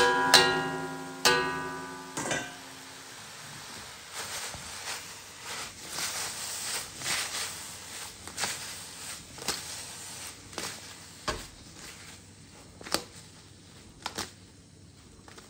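Metal spatula striking and scraping a metal wok while beef is stir-fried and tossed. The wok rings for a couple of seconds after two sharp strikes near the start, then lighter scrapes and knocks continue over faint sizzling.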